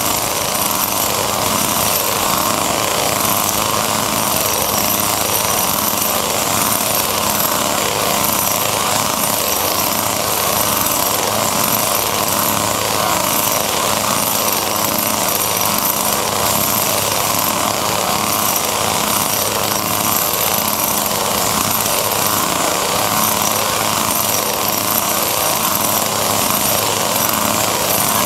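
Chainsaw engines running steadily, a dense mechanical chatter that does not let up.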